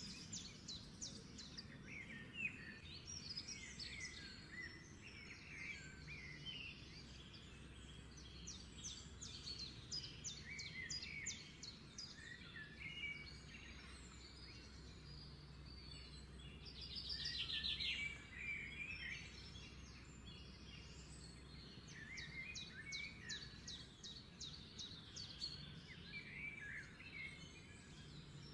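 Birds chirping, with short calls and fast trills of rapidly repeated notes, over a steady low hum. A louder fast trill comes a little past halfway.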